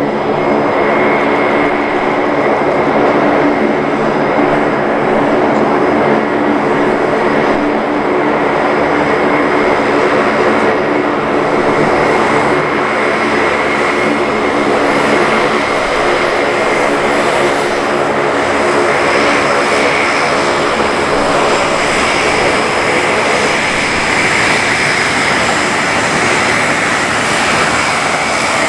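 Four-engine turboprop of a KC-130J Hercules tanker running as it taxis: a loud, steady propeller drone with a steady high turbine whine over it.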